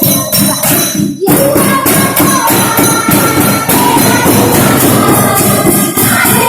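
Schoolchildren playing improvised percussion on household objects, a loud, steady beat of many struck and rattled things together, with a brief break about a second in.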